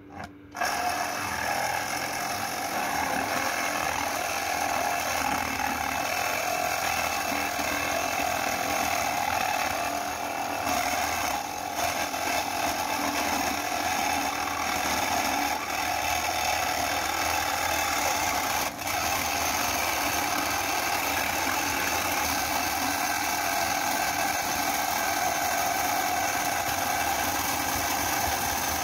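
Cordless battery saw running and cutting through a 0.75 mm light-steel C-channel, its reciprocating blade rasping steadily through the thin galvanized metal. It starts about half a second in and keeps going, dipping briefly twice along the way.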